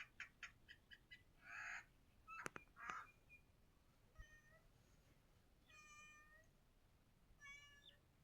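Faint animal calls: a quick run of short chirps in the first second, a couple of rasping bursts, then three short pitched calls spaced a second or two apart.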